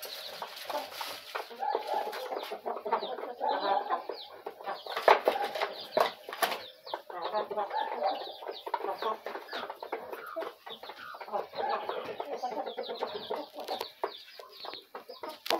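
A flock of domestic hens and a rooster clucking steadily as they feed at a trough, with scattered sharp taps, the loudest about five and six seconds in.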